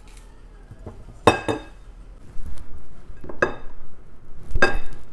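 Three sharp, ringing clinks of a kitchen knife and tableware as strawberries are halved by hand over a ceramic plate and dropped into a blender cup.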